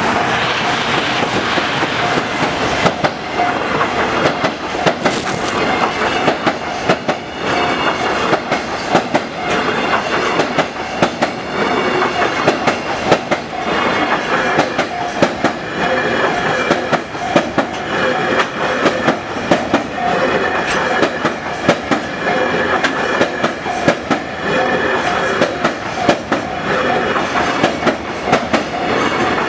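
Freight train of container wagons rolling across a steel truss railway bridge: a loud, continuous rumble with a rapid, regular clatter of wheels over the rail joints.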